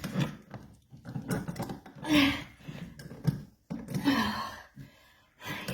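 Clicks and scrapes of an outlet and stiff wires being forced into an electrical box, with two short strained vocal sounds, the second falling in pitch, from the effort of pushing hard.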